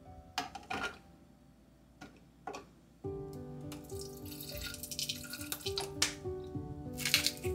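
Olive oil pouring in a thin stream from a squeeze bottle into a plastic chopper bowl of spinach and cashews, for pesto. A few light clicks against the plastic come first, and background music with steady tones starts about three seconds in.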